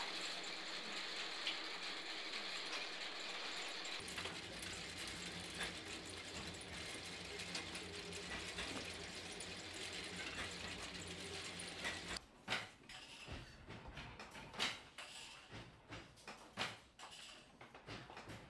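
Yarn bobbin-winding machine running with a steady whir as dyed yarn is rewound from a turning swift onto wooden bobbins, a lower hum joining about four seconds in. About twelve seconds in the whir gives way to scattered light clicks and taps.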